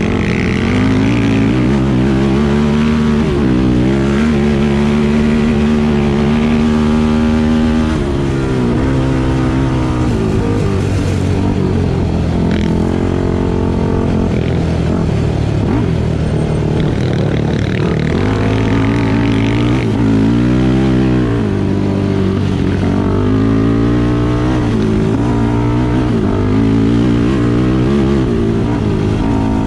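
An off-road vehicle's engine running while riding, revving up and down so its pitch rises and falls again and again, over a constant rushing noise.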